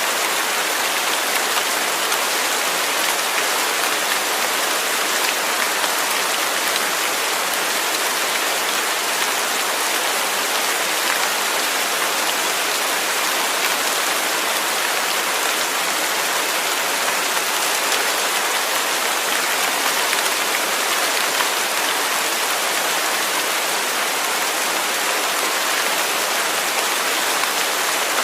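Steady rain falling without thunder, an even hiss with no breaks or louder strokes.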